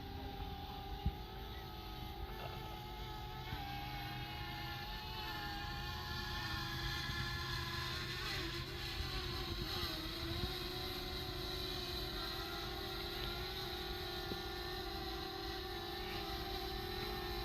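DJI Mavic Air quadcopter's propellers buzzing as it hovers and descends for a landing: a steady whine of several tones that drift a little in pitch and slowly grow louder.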